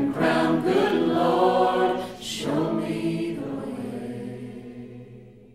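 Music: an unaccompanied choir singing a slow gospel hymn, its held final chord fading out near the end.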